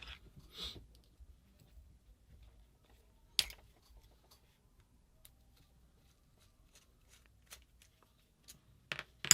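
Small metal parts and tools being handled during disassembly: scattered faint clicks, one sharp click about a third of the way in, and a few quick clicks near the end.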